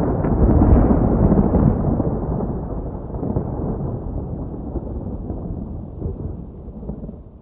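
A long, deep rumble of thunder, loudest in the first couple of seconds, then slowly rolling away and fading out near the end.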